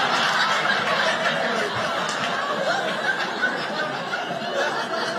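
A theatre audience laughing together, many voices at once, loud at first and slowly dying down.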